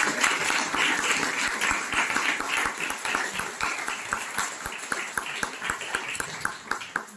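Audience applauding, loud at first and gradually dying down to a few scattered claps near the end.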